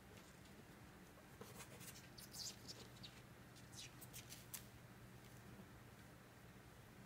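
Faint scratching and rustling of kittens' paws and claws on a cloth towel, a brief cluster of short scratches in the middle, over a faint low hum.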